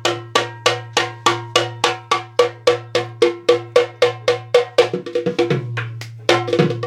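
Hand-played dhol, a laced two-headed barrel drum, struck in a fast steady rhythm of about three to four strokes a second. About five seconds in, the strokes turn softer and quicker, then return loud near the end. A steady low hum runs underneath.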